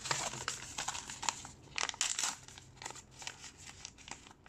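Plastic packaging crinkling and crackling as it is handled by hand, dense for the first couple of seconds and then thinning to scattered crackles.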